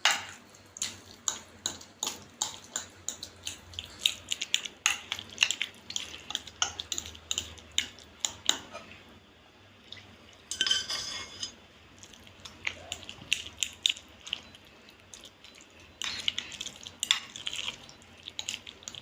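Spoon clinking and scraping against a dish while stirring and spreading a milk, cream and sugar mixture, about two strokes a second, with a brief rushing noise about halfway through.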